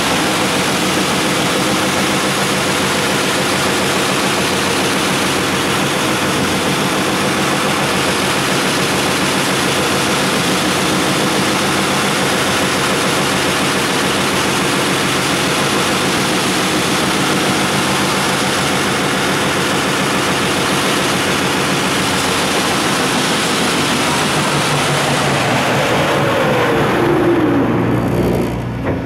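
Weber MK 1/1-1350 flow-through slag grinder running: a loud, steady machine hum and hiss from its abrasive grinding belt and drive, with a short falling whine near the end.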